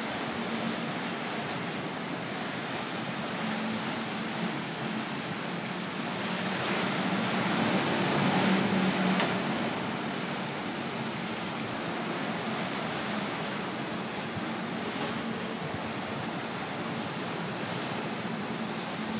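Wind and rushing sea water from a ship at sea, a steady noise that swells louder about halfway through, with a faint low hum underneath.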